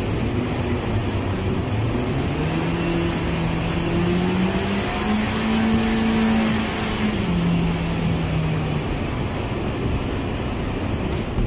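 Toyota Avanza engine running on a hub dynamometer during a dyno pull. Its pitch climbs steadily for about six seconds as the revs rise, then drops back about seven seconds in as the run eases off.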